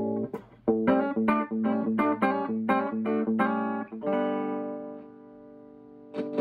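Electric guitar played through a Fender Pro Junior III tube combo amp. A held chord is cut off by a crackle, then comes a quick run of picked notes about three or four a second, then a chord rings out and fades. Scratchy crackles come as the volume knob is turned, the sign of a dirty, oxidised volume pot.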